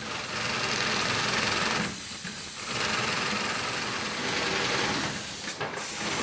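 Industrial sewing machine running, stitching a zigzag seam to sew bolt-rope (Keder) tape onto the luff of a sail. The running eases off briefly twice, about two seconds in and near the end.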